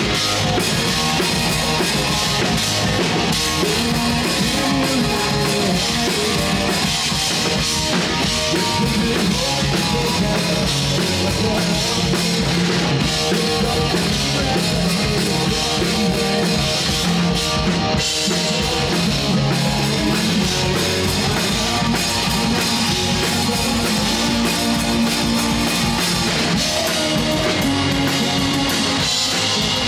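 A rock band playing live on drum kit, electric guitar and electric bass guitar, loud and without a break.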